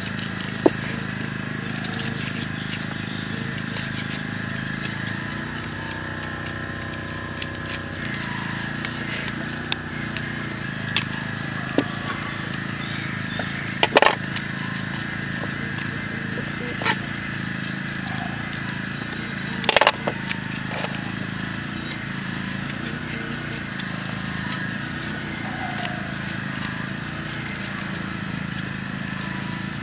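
A handful of short, sharp knocks and snaps of a knife cutting the stems off raw Nendran bananas, over a steady background hum.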